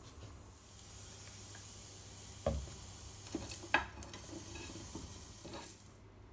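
Onions sizzling in a hot frying pan, with a few knocks of a cooking utensil against the pan. The sizzle starts about half a second in and stops shortly before the end.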